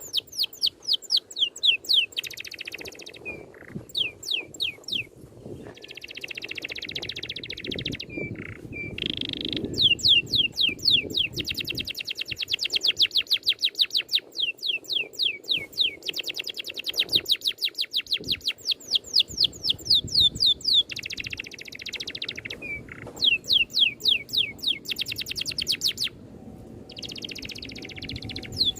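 A songbird singing long, rapid rolling trills of descending whistled notes, about ten a second, broken now and then by short buzzy phrases.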